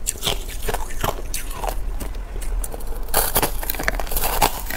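Close-up crunching of crushed ice being bitten and chewed: irregular cracks and crackles, loudest and densest in the second half.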